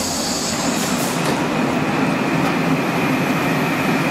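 Rome Metro Line B train running: a steady rumble with a high whine held throughout.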